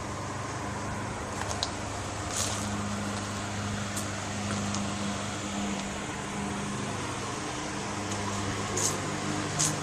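Steady low mechanical hum with a few brief sharp ticks scattered through it.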